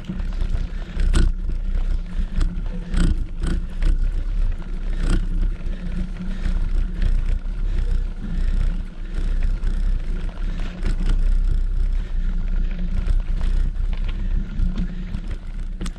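Bicycle riding along a road: wind buffeting the GoPro's microphone and tyre rumble fill the low end, with scattered clicks and rattles from the bike and camera mount over bumps, and a faint steady tone underneath.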